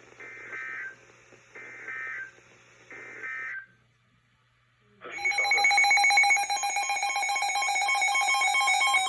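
Three short bursts of EAS SAME digital data, the end-of-message signal closing a NOAA Weather Radio alert. After a second or so of quiet, a weather alert radio's loud electronic alarm starts about five seconds in: a rapidly pulsing tone.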